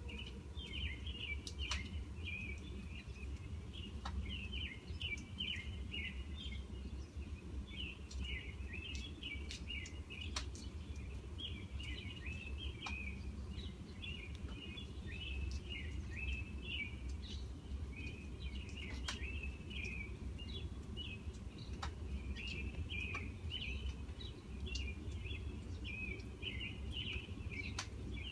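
Steady low rumble of distant trains, with birds chirping busily over it and a few sharp ticks.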